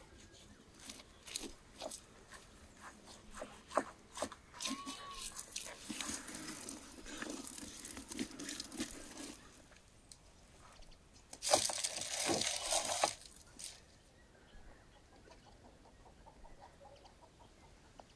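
Large raw lamb carcass being handled and shifted on a wooden cutting board: irregular knocks, wet slaps and rustling, with a louder scuffing stretch about twelve seconds in.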